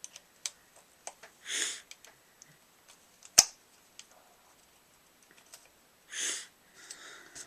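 Small clicks and taps of parts being handled on a paintball marker, with one loud, sharp click about three and a half seconds in. Two short hissing puffs come about a second and a half in and again near the end.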